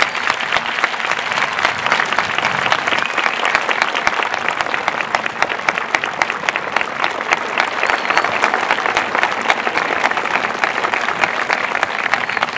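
A large crowd clapping in a standing ovation: dense, steady applause.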